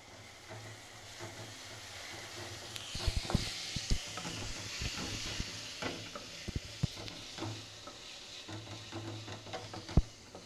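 Wooden spatula stirring a frying tomato-onion masala in a metal kadai, knocking against the pan at irregular intervals over a light sizzle that grows about three seconds in.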